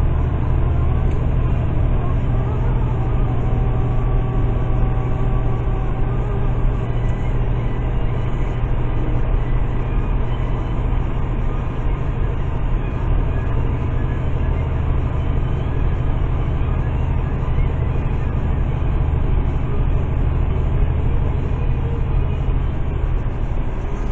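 Semi truck's diesel engine and tyre noise heard from the cab while driving at highway speed, a steady low drone with no change.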